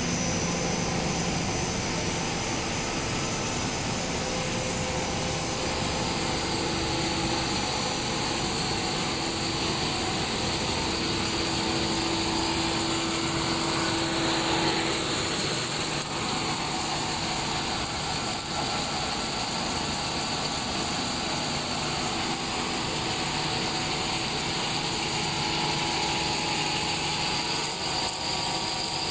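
Four-screw cast stretch film extrusion line running: a steady machine drone of its drive motors and cooling fans, with a few steady tones over a hiss.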